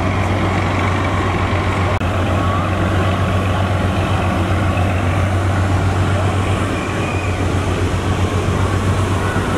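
Steady low drone of a river passenger launch's diesel engines running at speed, with rushing water and a murmur of voices.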